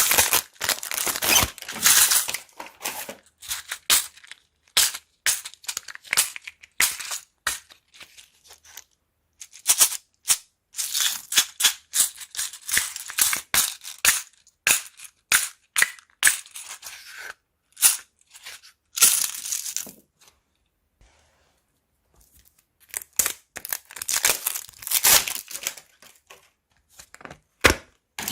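Crunchy slime being squeezed and worked by hand, giving dense runs of sharp crackles and pops. There is a short pause about two-thirds of the way through.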